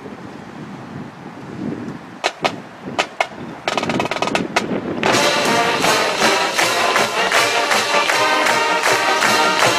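Marching band percussion: a few sharp strikes about two seconds in, then a rapid roll, and about five seconds in the full band comes in loud and holds a dense chord-filled passage.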